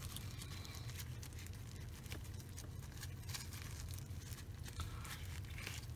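Soft rustling and light crinkling of tissue paper and plastic gloves while a fishing reel part is wiped clean, with faint scattered clicks, over a steady low hum.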